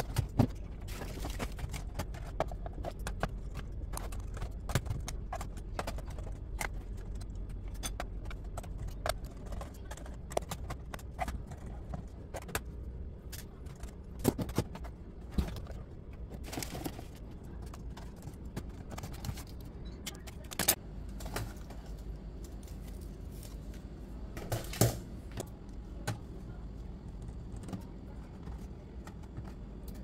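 Scattered plastic clicks, taps and knocks of an HP 250 G3 laptop being pried open, its clips released with a plastic prying tool and its keyboard lifted off, with a few louder knocks along the way.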